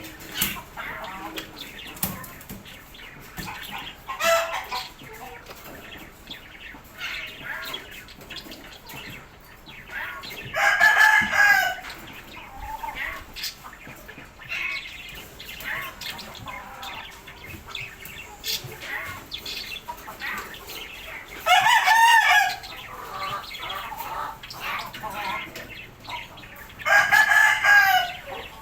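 Rooster crowing three times, each crow a loud call of about a second and a half that rises and falls in pitch, with softer clucking and chirping between the crows.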